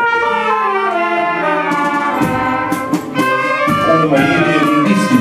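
Brass band of saxophones, trumpets and tuba playing a march-like tune together, with a few sharp percussion hits in the middle.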